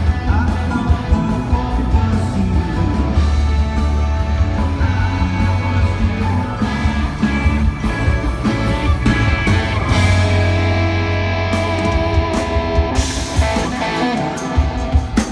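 A rock band playing live through a concert PA at a sound check, with a heavy bass and subwoofer low end, electric guitar and drums with cymbal hits. The playing thins out near the end.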